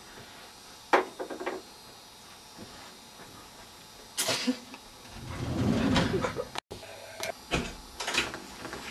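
Knocks and rattles of a mirrored sliding wardrobe door being handled. A sharp knock comes about a second in, and a louder stretch of low rumbling near the middle cuts off suddenly.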